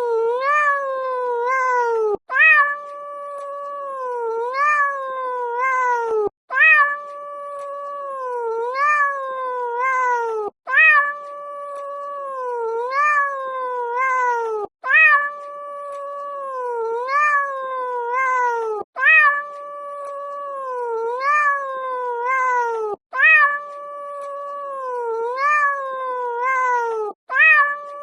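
Cat meowing: a long drawn-out meow followed by a few shorter rising-and-falling meows. The same sequence of about four seconds repeats over and over, each repeat starting abruptly after a brief dropout.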